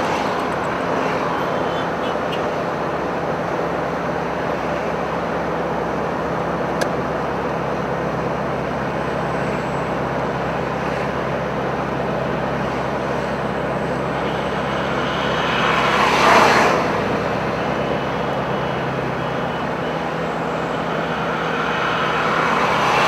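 Road traffic noise, steady engine and tyre sound, with one vehicle passing louder, rising and falling about sixteen seconds in.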